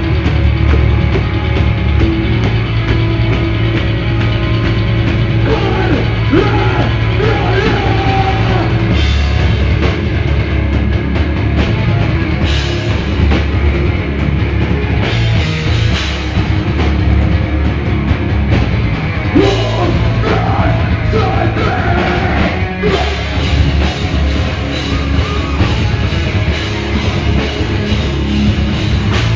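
Hardcore punk band playing live at full volume: distorted electric guitar, pounding drum kit and shouted vocals.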